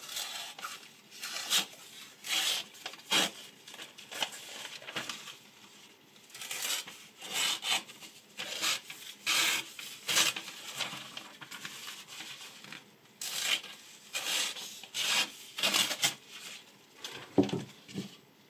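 Short rasping strokes of a knife blade against material, roughly one a second with two brief lulls, and a heavier knock near the end.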